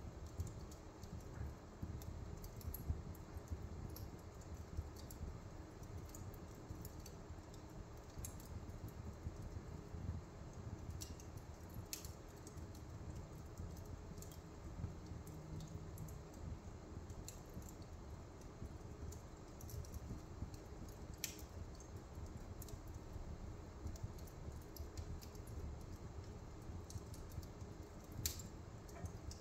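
Wood fire burning in a fireplace: irregular small crackles and a few sharper pops over a low, steady rumble of the flames.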